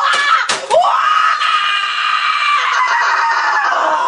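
A boy screaming: after a few sharp knocks in the first second, one long, high-pitched scream held for about three seconds that drops in pitch right at the end.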